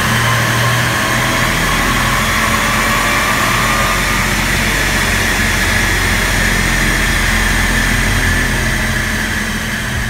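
Supercharged Audi S4 3.0 V6 running on a rolling-road dyno: a steady engine and roller drone with a high whine over it, easing off slightly near the end.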